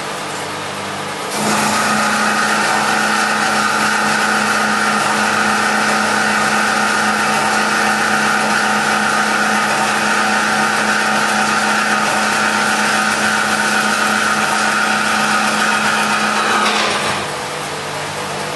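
Metal-cutting bandsaw, driven by a 2 hp motor through a worm gearbox, running with its blade fed down hydraulically into a metal workpiece. About a second in the blade bites into the work and the sound steps up to a louder steady whine over a hiss. Near the end it drops back as the blade finishes the cut.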